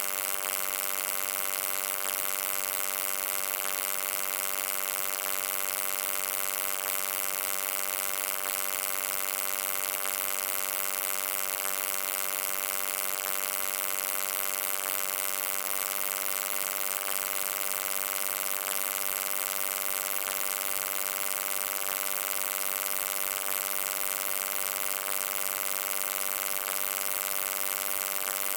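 Steady electric hum and buzz, many even tones stacked together with a hiss on top, unchanging throughout.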